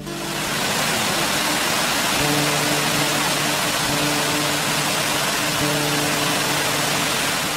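Water pouring over a weir's lip, a steady dense rush of falling water that cuts in and cuts off abruptly. Soft guitar music carries on underneath.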